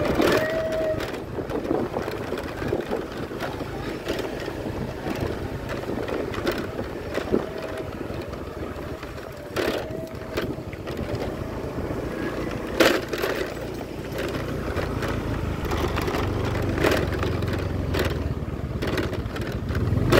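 Outdoor street noise: a steady low rumble, like motor traffic, with scattered short clicks and knocks.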